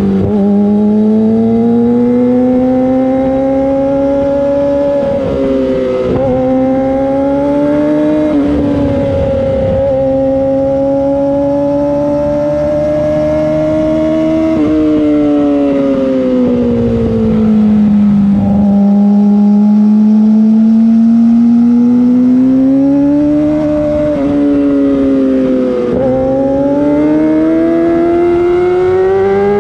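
Yamaha YZF-R6 inline-four engine on a LeoVince full exhaust system, ridden hard: the pitch climbs through several quick upshifts, each a short sharp drop, then falls off steadily for a few seconds through the middle before climbing again through more upshifts.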